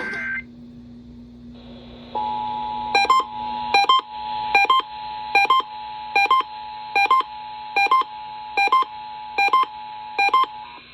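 Emergency Alert System attention signal: a steady two-tone alarm (the 853 and 960 Hz pair) starting about two seconds in and holding to the end, over a low steady hum. A short sharp beep repeats a little faster than once a second on top of it.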